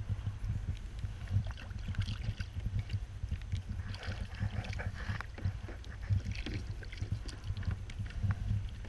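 A hooked dogfish splashing at the surface beside a kayak as it is lifted out of the water, with water slapping the hull. Wind rumbles steadily on the microphone throughout.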